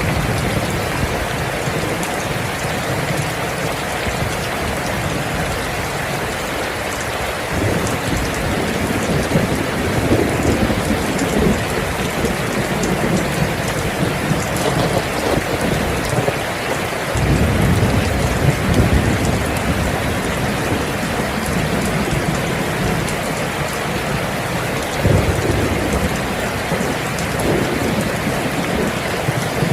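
Steady rain, with deep rolling rumbles of thunder that swell in about a quarter of the way through and again a little past the middle.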